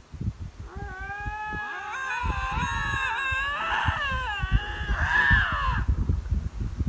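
Canada lynx yowling: long, wavering cat-like calls that bend up and down in pitch and overlap in places, starting about a second in and stopping shortly before the end. Low thumps on the microphone run underneath.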